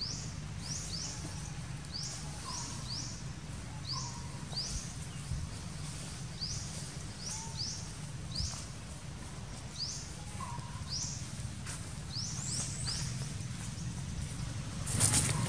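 A bird gives short, high, rising chirps over and over, one or two a second, over a low steady hum. A brief burst of noise comes near the end.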